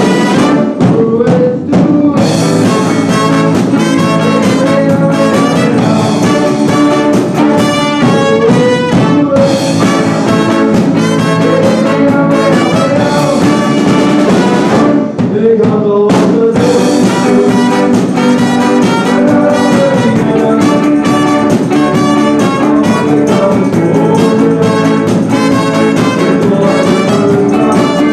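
A live band playing, with trumpet and trombone over electric guitar and drums.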